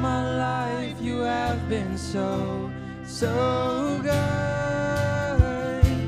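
Worship band music: acoustic guitar backing under a slow sung melody with long held notes that slide between pitches, and two sharp hits near the end.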